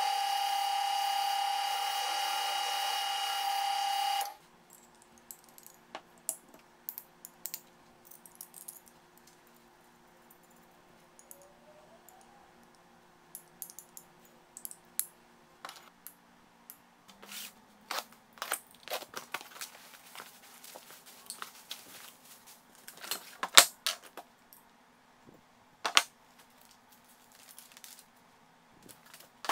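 Drill press running with its bit cutting through the wall of a square steel tube, a steady whine that stops suddenly about four seconds in. After that, scattered metal clicks and clanks as square steel tubes are handled and slid together, with one sharp clank about two-thirds of the way through.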